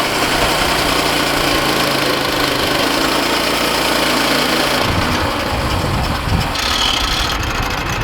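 Woodland Mills HM122 portable band sawmill running: its gasoline engine drives the band blade with a loud, steady noise. The engine note shifts and turns rougher about five seconds in.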